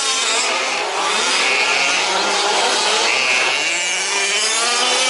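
Several 1/5-scale RC trucks' small two-stroke petrol engines running at race speed, their overlapping buzzing notes rising and falling as the throttles open and close.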